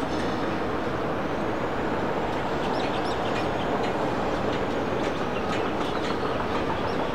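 Airbus A330's twin Rolls-Royce Trent 700 jet engines running at taxi power, a steady rumble as the airliner taxis.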